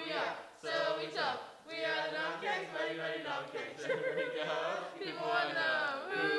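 A small group of teenagers chanting a song together in unison, unaccompanied.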